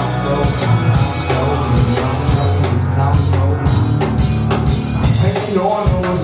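Rock band playing live: drum kit hits over a steady, deep bass line, with no vocal.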